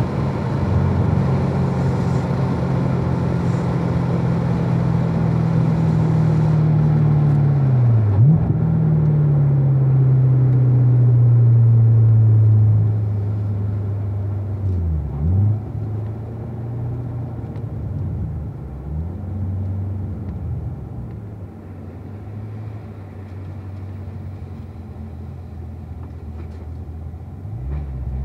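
Chevrolet Corvette V8 engine slowing down in gear, its pitch falling steadily from about 3,000 rpm toward idle, with short dips and recoveries in the revs at each downshift from fourth to second. Louder for the first dozen seconds, then quieter and lower as the car rolls along slowly.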